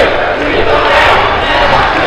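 A crowd of demonstrators shouting together, many voices overlapping with no single voice standing out.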